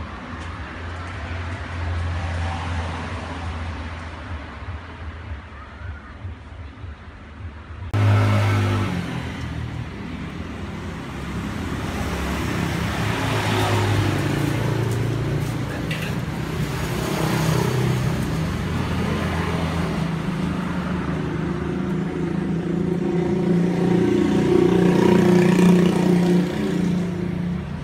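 Motor vehicle engine running in the street beyond the gate, a steady low hum that grows louder toward the end; the sound changes abruptly about eight seconds in.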